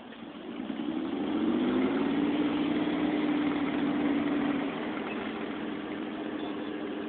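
A military vehicle's engine grows louder over the first second or so, rising slightly in pitch as it comes up. It runs steadily, then eases off a little about four and a half seconds in.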